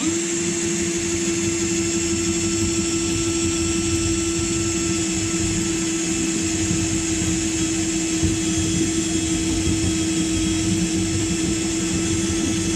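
Electric drill on a low speed setting running a spot weld drill bit upward into a spot weld on a Mini's steel sill panel: a steady motor whine over the grinding of the bit cutting through the weld to separate the sill panels.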